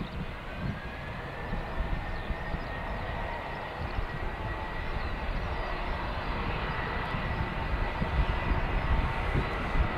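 Jet engines of a Jetstar Airbus A320 rolling down the runway: a steady engine rumble with a high whine that glides up in pitch in the first second or two, then holds, the whole sound growing gradually louder as the aircraft closes in.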